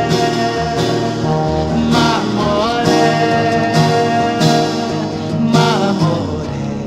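Music: an instrumental passage of a Brazilian popular song, with guitar, a gliding melody line and percussive strikes marking the beat.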